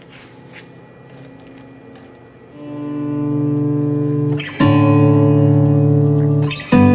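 Background instrumental music that fades in about two and a half seconds in: held chords that move to a new chord twice, each change after a short break. Before it, only faint room tone with a few light ticks.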